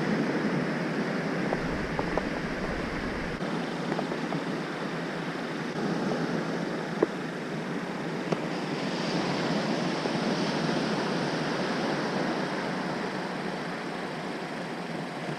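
Steady rush of small waves breaking and washing up a sandy beach, with two faint clicks about halfway through.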